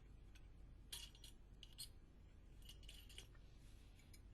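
Near silence with a few faint, short clicks, about a second in and again around three seconds in.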